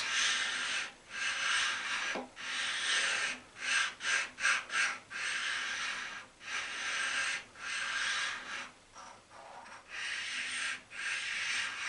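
The smooth side of an India oil stone is rubbed back and forth over the cast-iron side slideway of an Atlas 7B shaper. It makes a scraping hiss in short strokes of about one a second. The slideway is being lightly stoned to find and knock down any high spots.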